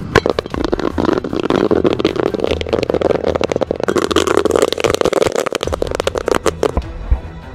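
Eruption of flame and sparks, a dense run of crackling pops over a rushing noise, starting suddenly and cutting off about seven seconds in.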